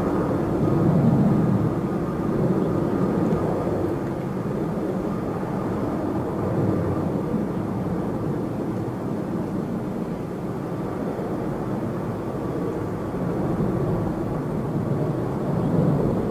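A Boeing 777-200ER's twin turbofan engines at takeoff thrust, heard at a distance as a steady low rumble with a faint high whine through the takeoff roll, rotation and lift-off.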